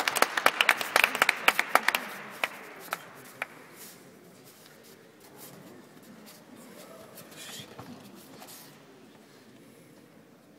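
Scattered clapping from a few spectators in a large hall. The claps are sharp and separate, and they thin out and stop about three seconds in.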